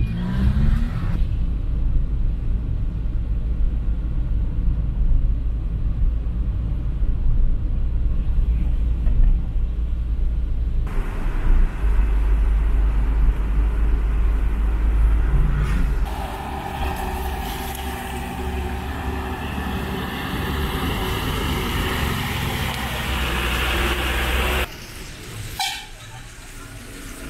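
A car driving on a road: a steady low engine and road rumble. The sound shifts abruptly a few times, with a brighter hiss from about two-thirds of the way in until a sudden cut near the end.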